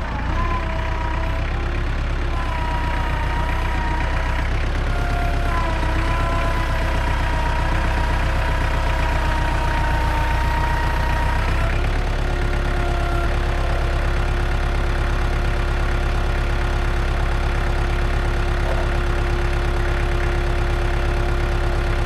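Portable band sawmill's gasoline engine running steadily, with a whining tone that wavers up and down for the first half and settles into a steady lower tone about halfway through.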